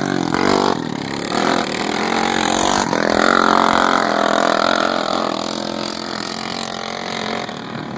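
Racing lawn mower engines running hard on a track, their pitch rising and falling as they rev. The sound eases off slightly toward the end.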